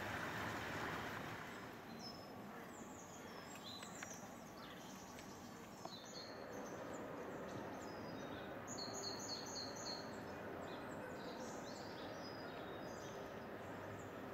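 Faint background ambience with small birds chirping: many short, high chirps scattered throughout, and a quick run of five or six notes about nine seconds in.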